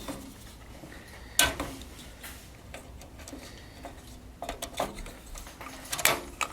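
Sharp clicks and knocks of computer parts being handled during a PC build, the loudest about a second and a half in and a cluster of several near the end.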